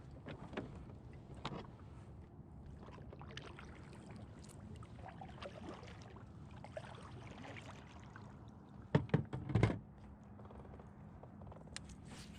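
Scattered small clicks and knocks of gear being handled aboard a fishing kayak, with a cluster of louder thumps about nine seconds in.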